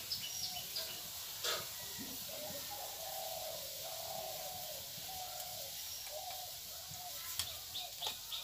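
A dove cooing: a low, wavering call lasting a few seconds in the middle. A few sharp clicks from the cooking come through, over a steady faint hiss.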